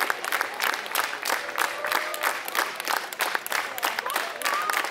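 Crowd clapping: many dense, irregular hand claps, with a few voices calling out here and there.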